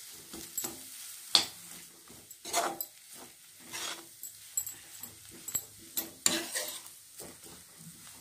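Spatula stirring and pressing mashed potato masala in a kadai: irregular scrapes and soft knocks against the pan.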